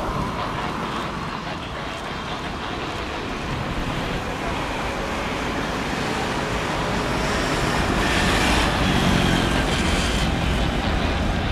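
Boeing 777's twin jet engines at takeoff thrust during the takeoff roll: a steady rush of jet noise that grows louder and hissier past the halfway point.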